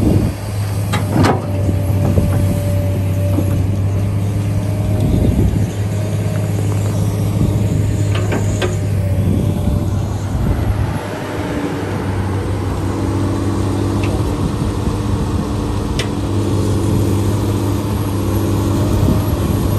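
An engine running steadily, a low hum, with a few sharp clicks or knocks over it.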